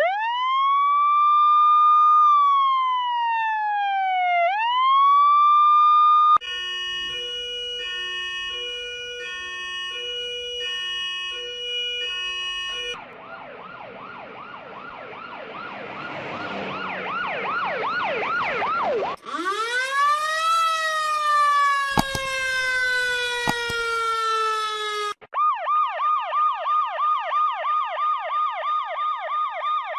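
A run of five different US emergency-vehicle siren sounds, each cutting straight into the next. First a slow wail that rises, falls and rises again, then a steady hi-lo two-tone and a fast warble over a hiss. Then a wail that climbs and slowly sinks, and last a rapid yelp at about four cycles a second.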